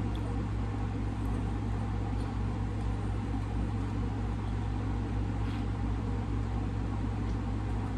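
Steady low hum of background room noise, at an even level throughout, with a few faint small clicks.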